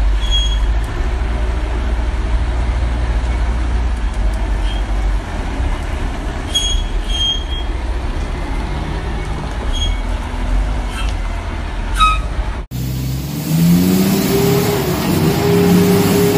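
Dump truck's diesel engine running with a heavy, steady low rumble, with a few short high chirps over it. Near the end it cuts to another truck engine that rises in pitch as it is revved.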